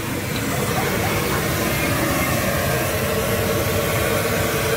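Chicken pieces deep-frying in a large wok of oil, sizzling in a steady hiss.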